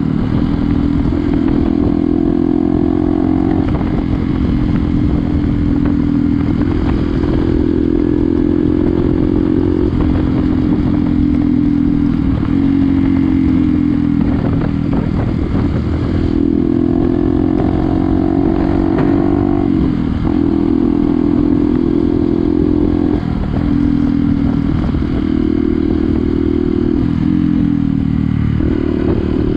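Single-cylinder motorcycle engine running steadily on the move, loud throughout. Its pitch steps up and down a few times, with brief dips in the second half.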